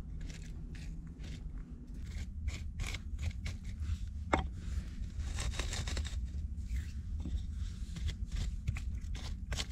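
A wooden stick scraping and poking through ash and glowing embers in an earthen fireplace, with many small sharp clicks and crunches and one louder click about four seconds in, over a low steady rumble.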